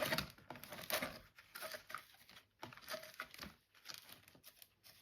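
Irregular crinkling and light clicks of small plastic containers and packaging being handled, with a few brief rustles spaced unevenly.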